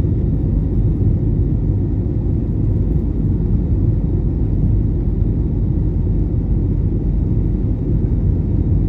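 Steady low rumble inside an airliner's cabin in flight: engine and airflow noise, even throughout.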